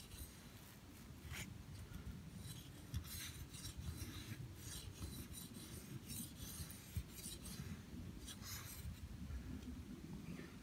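Large 1095 carbon-steel knife blade (ESEE Junglas II) shaving a split wooden stick: a series of short, irregular scraping strokes as the edge is pushed down the wood.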